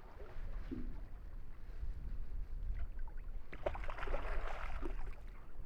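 Wind rumbling on the microphone and water against a small fishing boat, a steady low noise. About halfway through comes a brief burst of clattering lasting over a second.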